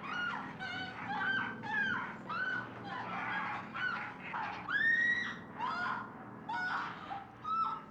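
Leatherface's shrill, pig-like squealing in the film's soundtrack: a rapid run of short squeals, about two a second, each rising and then falling in pitch.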